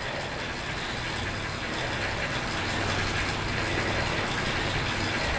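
Indoor bike trainer and bicycle drivetrain running under steady pedalling: a continuous whir with a low hum, growing a little louder after the first couple of seconds.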